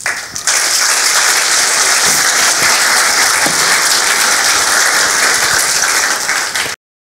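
Audience applauding, swelling in within the first half second and holding steady, then cut off abruptly near the end.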